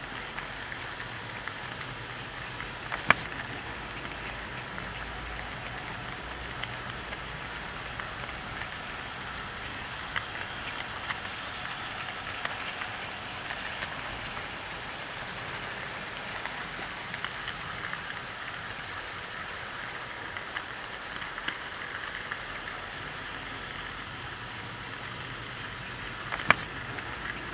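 OO gauge model train running along the layout's track, heard from a camera riding on it: a steady rolling rattle of metal wheels on the rails with scattered clicks over rail joints, and two sharper clicks, about three seconds in and near the end.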